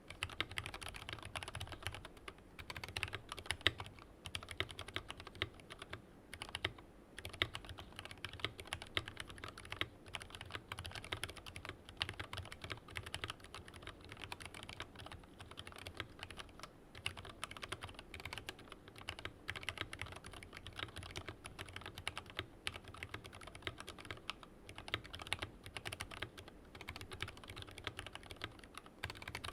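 Steady typing on a Tokyo60 V3 mechanical keyboard with an aluminium case, foam under the plate and stock keycaps, fitted with lubed and filmed full-nylon Lavender switches: a dense run of keystroke clacks with a few brief pauses.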